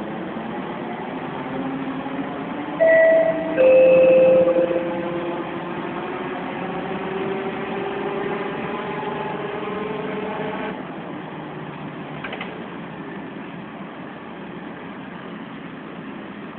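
Volvo B10M bus heard from inside the cabin: a howl from its worn gearbox rises steadily in pitch as the bus gathers speed, then stops abruptly about two-thirds of the way through. Two short, loud tones sound about three seconds in, the second lower and longer.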